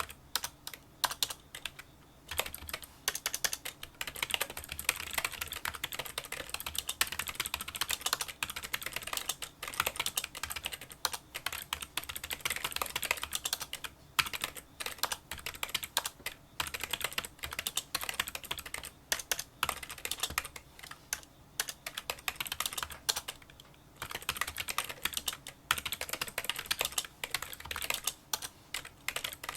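Fast continuous typing on a Kinesis Freestyle Solo split keyboard, whose membrane keys give small, fairly quiet clicks. The keystrokes come in quick runs broken by short pauses.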